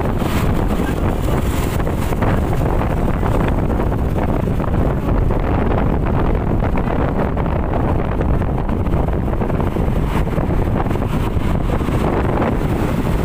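Steady wind buffeting the microphone on a moving ride, a dense low rumble with no distinct events.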